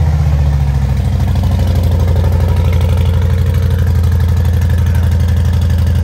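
Harley-Davidson Breakout's air-cooled V-twin idling loud through Rinehart slip-on mufflers, just after starting, with an even, loping beat that settles slightly in the first second.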